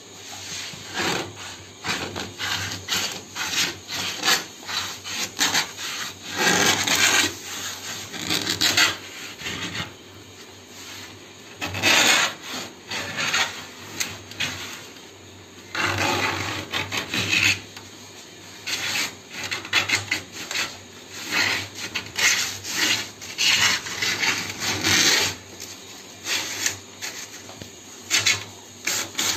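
A sewing-machine needle set in a homemade circle cutter scraping round and round on a Sunmica laminate sheet to score out a disc, in a long run of short, uneven scraping strokes with a couple of brief pauses.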